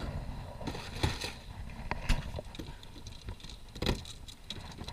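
Scattered knocks and light rattles from a plastic sit-on-top kayak and its fittings being handled, muffled as heard through a sealed GoPro housing, with the loudest knock near the end.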